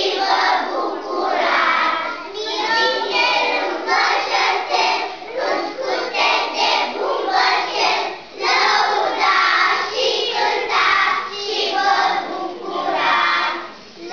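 Young children's choir singing together, phrase after phrase, with a short break about eight seconds in.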